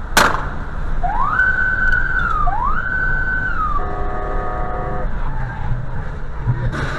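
Car cabin with a steady engine and road rumble. A sharp knock comes just after the start, then two whistle-like tones that each rise, hold and fall. After them a car horn sounds steadily for about a second.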